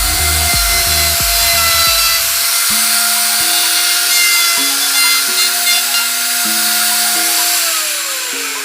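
A power tool motor whines steadily at high speed. Near the end it spins down, falling in pitch as it is switched off. Background music plays throughout.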